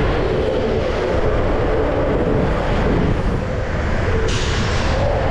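Longboard wheels rolling fast on asphalt, a steady low rumble with wind on the microphone, and a short hiss about four seconds in.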